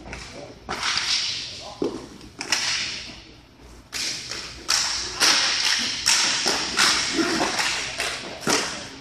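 Hockey sticks slapping and clacking against the ball or puck, the floor and each other during play on a sport-court rink: scattered sharp knocks at first, then a dense run of slaps from about four seconds in as play crowds the net.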